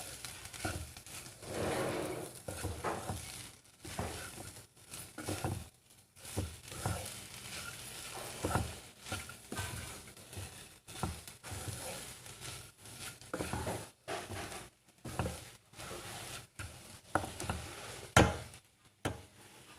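Amaranth leaves stir-frying in a pan: a spatula scrapes and knocks against the pan in irregular strokes over a light sizzle, with the sharpest knock near the end.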